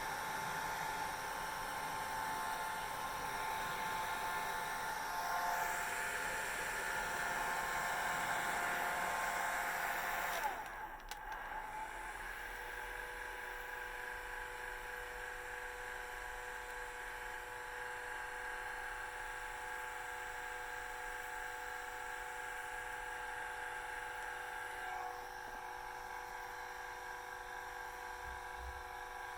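Handheld hair dryer blowing steadily, then switched down about ten seconds in: its pitch slides down and it carries on running more quietly with a steady hum.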